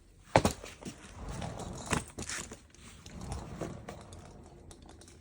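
Handling of a wheeled suitcase after its wheels were replaced: a sharp knock about half a second in, then rattling and scraping with a few more clicks.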